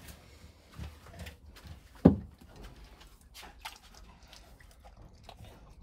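A dog gives one short, low woof about two seconds in, amid faint scattered clicks and knocks.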